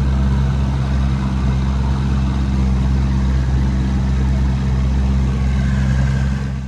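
Outboard motor of a jon boat running steadily under way, a loud, even, low drone that fades out at the very end.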